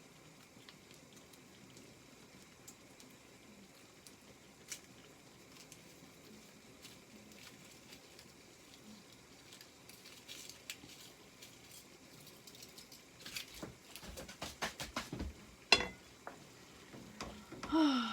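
Faint steady hiss of pans of mince and water simmering on the hob. In the last few seconds there is a run of light kitchen clicks and knocks, with one sharp knock.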